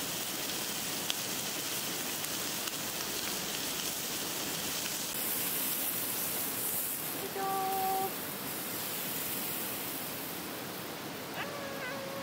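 Meat sizzling on the grill of a small folding camp fire pit: a steady rain-like hiss that thins near the end as the pieces come off the heat. A brief hum-like tone sounds about seven seconds in.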